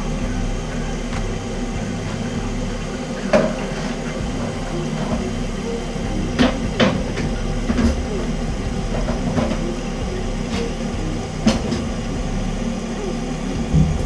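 Water running into a toilet tank through a newly installed Fluidmaster fill valve, a steady hiss and hum as the tank refills after the valve and flapper replacement. A few sharp clicks or knocks come through it.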